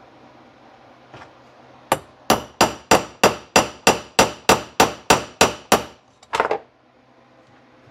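Small ball-peen hammer tapping a metal pin into a Marvel Schebler carburetor body: thirteen light, even metallic strikes at about three a second, followed by a short clatter.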